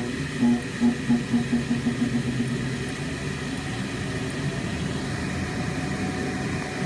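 Furnace shutting down: a steady low rumble with a pulsing hum, about three pulses a second, that dies away after about two and a half seconds.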